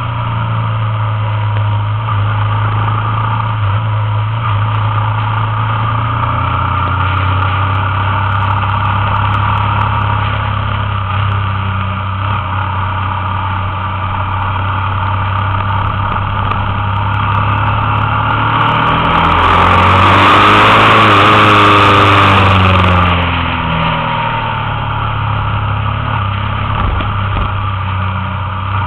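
Motorcycle engine running steadily at road speed, heard from the bike with wind and road noise. About twenty seconds in it gets louder for a few seconds, with the engine pitch rising and falling.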